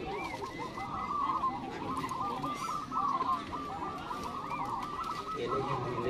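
Many caged zebra doves (perkutut) cooing at once, their calls overlapping into a continuous chorus.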